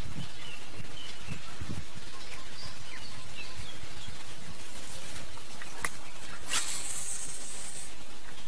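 Steady outdoor background noise with faint short chirps in the first few seconds, a sharp click just before six seconds and a brief high hiss soon after.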